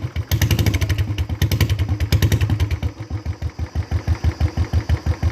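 Royal Enfield Bullet 350's single-cylinder engine running with no silencer on its exhaust pipe, revved up and then dropping back to a slow, evenly spaced idle thump about halfway through.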